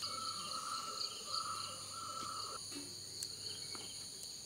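Insects chirping steadily in a high, pulsing trill, with a lower steady tone that stops about two and a half seconds in, and a few faint clicks.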